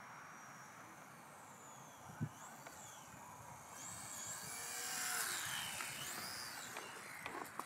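Electric motor and propeller of a small RC warbird model plane whining as it flies past low on a landing approach, growing louder toward the middle and sliding up and down in pitch before fading. Wind hiss throughout, with a single click about two seconds in.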